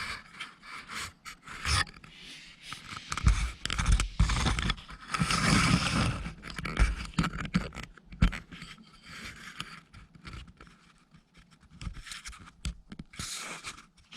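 Irregular scraping and rustling noises that come and go unevenly, with occasional low thumps.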